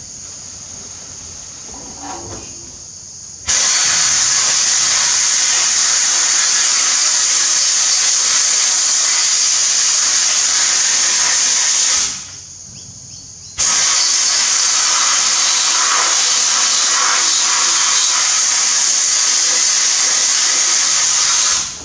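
Glass-bead blast cabinet blasting an injection pump housing: a loud, steady rushing hiss of compressed air and beads, in two long runs of about eight seconds each with a pause of a second or two between them. It starts about three seconds in, after quieter handling inside the cabinet.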